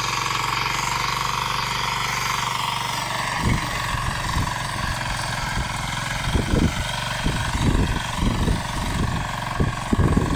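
Saamy 9 hp power weeder's single-cylinder engine running steadily under load as its rotary tines churn through the soil. From about three seconds in, irregular low thumps come and go over the engine.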